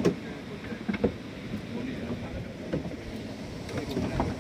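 Fishing boat under way at sea: a steady low rumble of engine and wind, broken by several short, sharp knocks.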